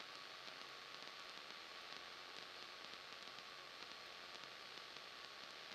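Faint, steady static hiss of the cockpit headset intercom audio, with no distinct event.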